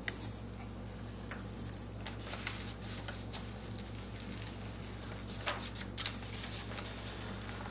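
Release paper being peeled off the silicone adhesive film on the back of a rice-paper painting: soft, continuous crinkling and crackling of paper, with a couple of sharper crackles late on, over a steady low hum.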